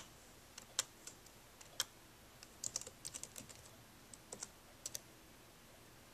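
Typing on a Dell Inspiron 1545 laptop keyboard: irregular key clicks in a short burst, stopping about five seconds in.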